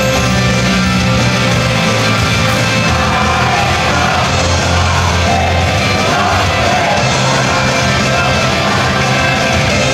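A loud live idol-group pop-rock song played over a sound system, with voices singing and shouting over a driving band track.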